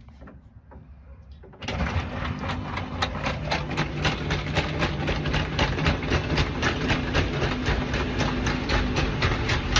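An electric motor starts about one and a half seconds in and runs steadily with a low hum and regular clicking, about four clicks a second. This fits a Cybertruck's power-closing cover shutting.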